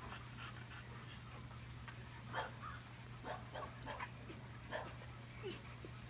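Dog making short, uneven high-pitched calls, about a dozen in a few seconds, over a steady low hum.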